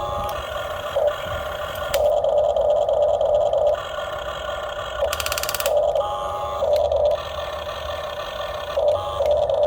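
Motors of a radio-controlled model excavator running in on-and-off bursts of a second or two, with a brief harsh buzz about five seconds in.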